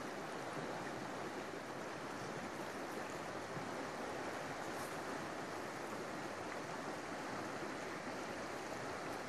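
Steady rush of a partly ice-covered river, its water running past rocks and ice.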